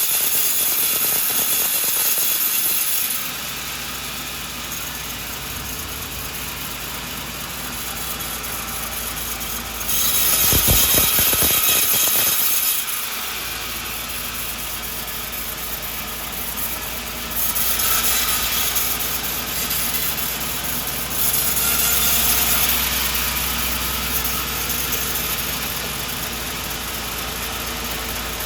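Sawmill running and sawing a coconut log, with louder stretches of blade cutting through the wood, the first at the start, then about ten, seventeen and twenty-one seconds in, and the machine's steady hum in between.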